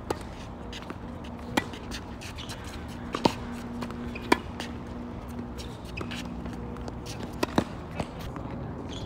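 Tennis rally on a hard court: a series of sharp pops from rackets striking the ball and the ball bouncing, spaced a second or more apart, with two hard hits loudest in the middle. A faint steady hum sits underneath.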